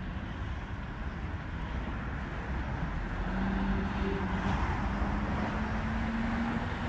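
Steady road traffic noise, with a passing vehicle's engine hum that grows louder and rises slightly in pitch from about three seconds in.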